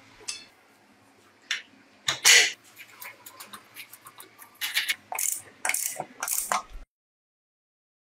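Metal-on-metal clinks and clicks of a socket and wheel parts on a Vespa scooter's wheel hub, as the hub nut is worked with the socket and the wheel rim is fitted onto the hub studs and its nuts put on. The clicks are irregular, with a louder clank about two seconds in and a run of clinks between about five and seven seconds.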